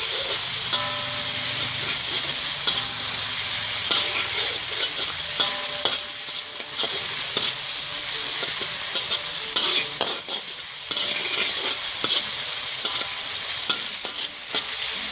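Small shrimp frying in hot oil with chilli sauce, sizzling steadily while a spatula stirs them, with frequent short scrapes and clicks against the pan.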